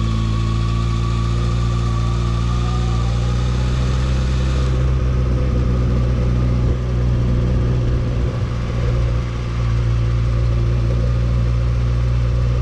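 Motorcycle engine running steadily at low revs while the bike rolls slowly in first gear, its pitch rising slightly in the first few seconds.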